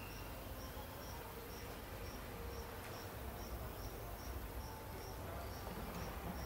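An insect chirping steadily in a regular rhythm, about two short high chirps a second, over a low steady rumble.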